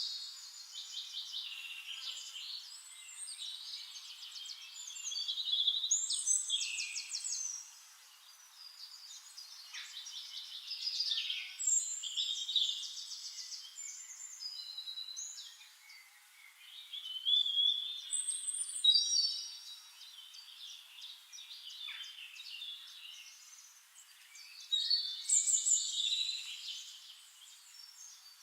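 Several songbirds singing together: overlapping chirps and fast trills in phrases a few seconds long, with brief lulls between them. The sound is thin, with no low end at all.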